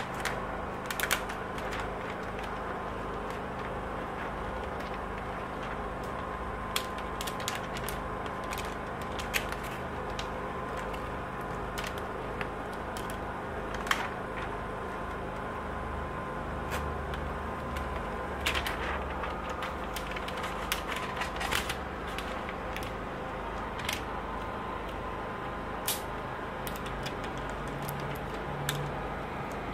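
Scattered sharp clicks and crackles of stiff plastic window film being handled and tucked into the window frame's rubber seal, over a steady background hum.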